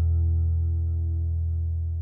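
Background music ending on a sustained chord that rings on and slowly fades away.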